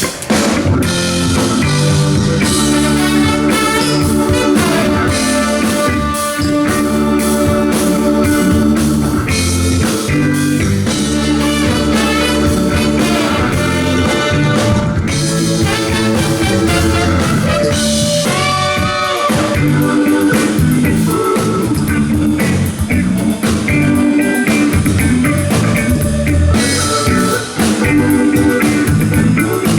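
A live funk band playing a groove during a sound check, with drum kit, bass and electric guitar.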